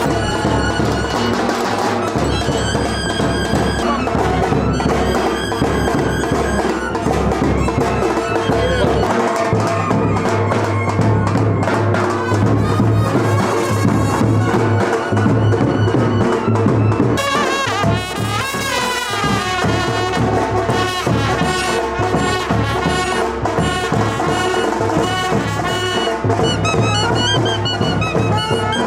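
Instrumental music with trumpets and other brass over drums and a steady beat.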